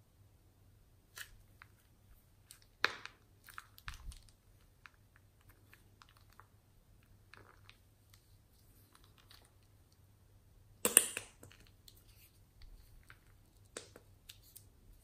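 Plastic piping bag filled with slime crinkling and crackling as hands squeeze and work it, in scattered short crackles. There is a louder burst about three seconds in and the loudest about eleven seconds in.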